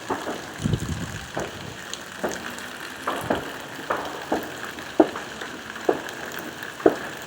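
Distant New Year's fireworks and celebratory gunfire, scattered sharp bangs and pops every second or so with a low rumbling boom about a second in, over steady falling rain.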